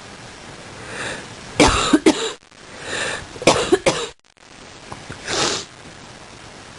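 A person coughing in two short fits: a breath drawn in, a quick run of about three coughs, another breath and a second run of coughs, then one more breath in.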